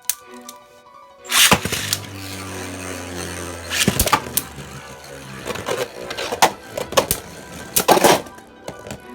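Two 3D-printed Beyblade spinning tops are launched into a stadium a little over a second in with a sudden loud rasp. They then scrape steadily as they spin, with several sharp plastic clacks as they collide, over background music.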